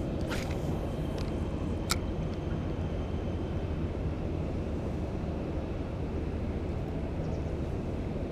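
Steady low outdoor rumble, with two sharp clicks about a third of a second and two seconds in.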